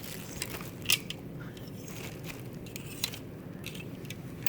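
Dresses on hangers being handled on a clothes rack: irregular rustling and clicking, with a sharp click about a second in and another about three seconds in.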